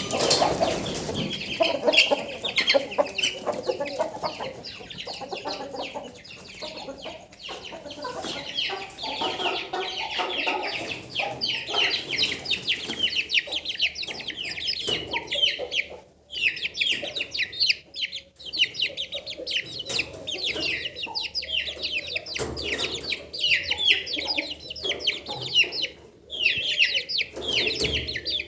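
Aseel chickens clucking, over a dense, continuous stream of short high-pitched peeps that pauses briefly twice.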